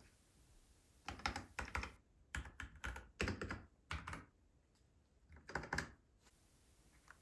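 Typing on a Keychron K10 Pro mechanical keyboard: quick runs of key clicks in three bursts, the first starting about a second in, with short pauses between.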